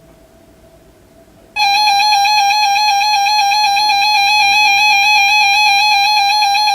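Weather radio alert tone: after low hiss, a loud, steady, single-pitched tone with a buzzy edge starts abruptly about a second and a half in and holds unchanged, sounding the Required Weekly Test.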